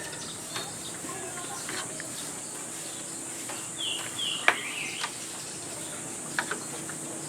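Outdoor ambience: a steady high-pitched insect drone, with a few quick bird chirps around four seconds in and a few light clicks.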